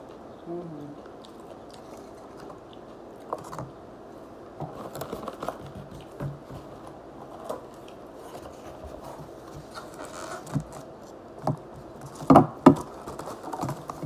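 Close-up eating and food handling: chewing with scattered small clicks, rustles and scrapes of food containers and utensils. Two louder knocks come near the end.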